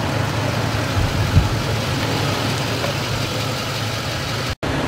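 Ambulance engine idling with a steady low hum, and one short knock about a second and a half in. The sound cuts out for an instant near the end.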